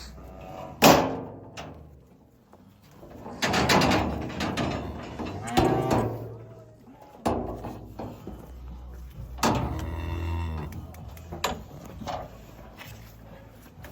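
Cattle mooing three times, long drawn-out calls, with a sharp bang about a second in and a few lighter knocks between the calls.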